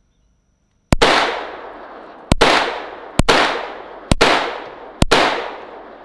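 Five unsuppressed shots from a PSA Dagger 9mm pistol firing 115-grain supersonic ammunition. The first comes about a second in, then the rest follow roughly a second apart. Each is a sharp, pretty darn loud crack with a long echoing tail that fades over about a second.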